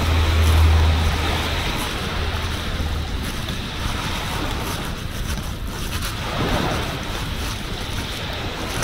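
Sea waves washing on a beach, with wind buffeting the microphone. A low rumble at the start fades away within the first couple of seconds.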